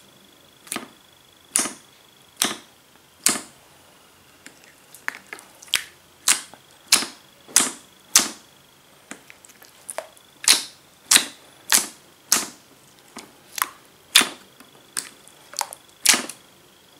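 Fingers poking and pressing into a large tray of thick, glossy jiggly slime, making a steady run of sharp, wet pops and clicks, roughly one or two a second.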